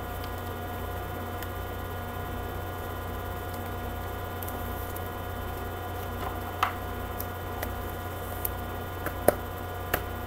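Steady electrical mains hum, with a few light clicks in the second half as trading cards are handled.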